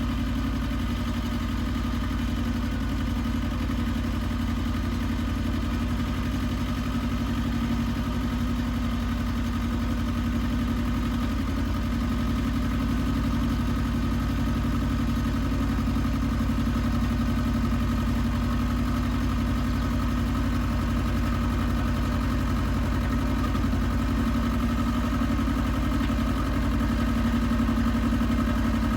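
Iseki TX1300 compact tractor's engine running steadily at an even speed, growing slightly louder toward the end.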